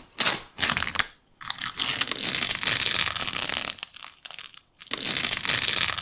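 Crinkling and crackling of paint-covered masking strips being peeled off a painted stone. It comes in a few bursts, the longest in the middle.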